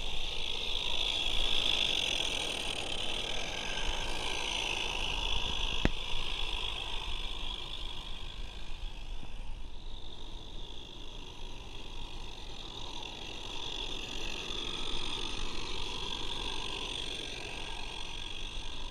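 Regner Vincent and Lumberjack live steam garden-railway locomotives running double-headed, with a steady hiss and the rolling noise of the train on the track. A single sharp click about six seconds in.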